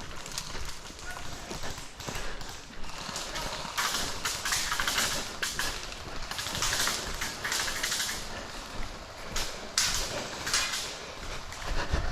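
Irregular footsteps with rustling, as of a player moving on foot.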